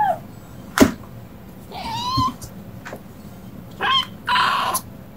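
Kittens meowing in short calls: one trails off at the start, another comes about two seconds in and a brief one near four seconds. There is a sharp tap about a second in, and a short hiss of noise just after the last call.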